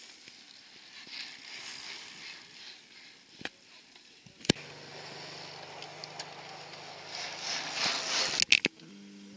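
Outdoor wind and road noise as a racing bicycle passes close by: a rush that swells and peaks late on, with a few sharp clicks and a low steady hum underneath in the second half.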